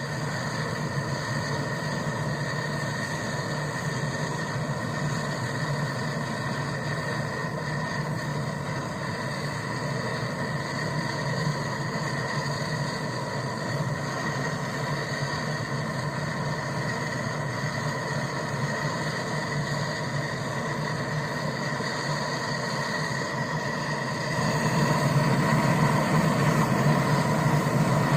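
A newly fitted refrigerator compressor switched on and running with a steady electric hum, getting louder about 24 seconds in.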